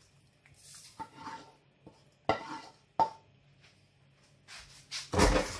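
Wooden spoon scraping and knocking against a frying pan as thick meat sauce is scraped out onto pasta in a glass baking dish, with three sharp knocks. Near the end comes the loudest sound, a heavy thump with a short clatter.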